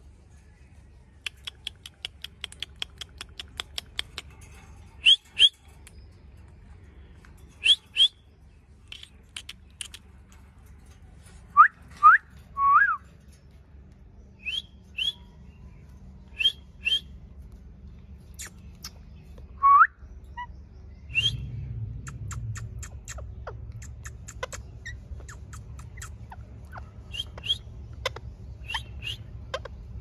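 Rose-ringed parakeets calling: a quick run of short chirps, then sharp whistles, mostly in pairs, with a few rising whistled calls in between.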